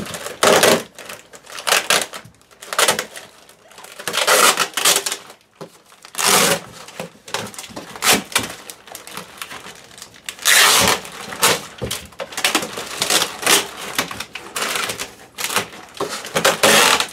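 Packaging being handled inside a cardboard box: an accessory pack taped to the box bottom is pulled loose, with tape tearing, plastic bags crinkling and cardboard rubbing, in irregular rustling bursts.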